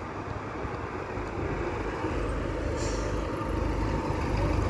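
Dennis Dart single-deck diesel bus driving past close by, its engine rumble growing louder as it nears.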